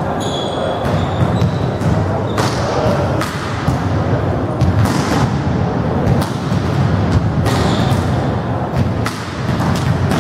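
Volleyballs being spiked in a warm-up hitting drill: a string of sharp ball smacks and bounces on a hardwood gym floor, roughly one a second, echoing in a large hall over a steady background din.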